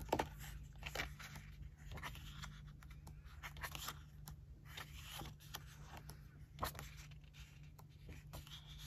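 Glossy pages of a photobook turned one after another: soft, irregular paper rustles and flicks, a few of them sharper, over a low steady hum.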